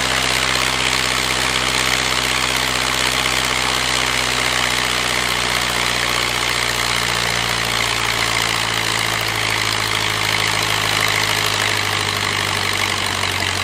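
De Havilland Tiger Moth's 130 hp Gipsy Major four-cylinder engine and wooden propeller running steadily at full throttle during the run-up check of the engine's output.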